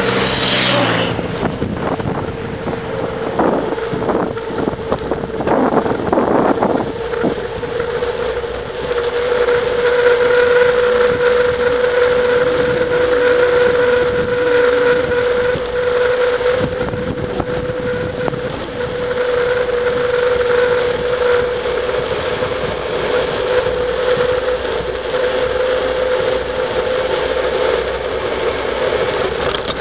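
Bicycle coasting fast down a paved road: wind rushing over the microphone and tyre noise, under a steady high whine. An oncoming lorry's engine passes in the first seconds.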